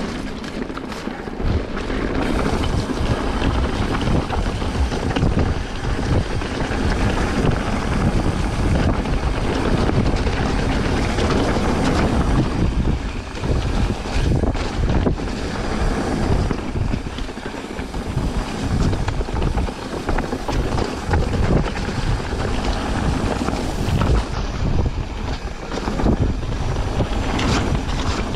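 Wind buffeting a camera microphone during a mountain-bike descent, a dense, steady rush with frequent short knocks and rattles from the bike and tyres on the rough trail.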